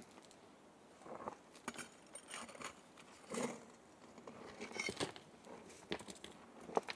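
Hands scraping through loose dry dirt and shifting small rocks, with short scrapes and stone-on-stone clinks at irregular intervals.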